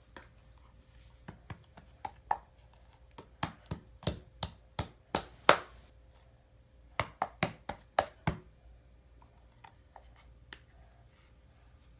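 Sharp taps and clacks of plastic Play-Doh tools knocking on a hard surface: about eighteen uneven strikes between one and eight seconds in, the loudest near the middle, then a couple of stray ones.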